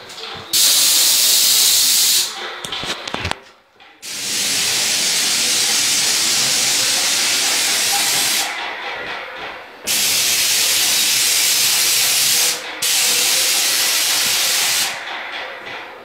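Paint spray gun hissing as it sprays paint onto woodwork. The trigger is held in four long bursts with short pauses between them.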